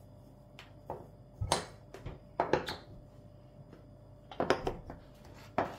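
A glass jar with a bamboo lid being closed and set down on a marble worktop, a spoon clinking against it: a string of sharp clinks and knocks, coming in two clusters, about one and a half seconds in and again about four and a half seconds in.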